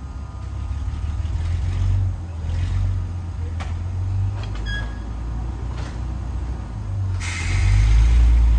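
Low, steady rumble of the Brill 'Doodlebug' railcar working to move a coupled diesel locomotive, with a few light metallic clicks and clanks in the middle. A loud burst of hissing air comes about seven seconds in.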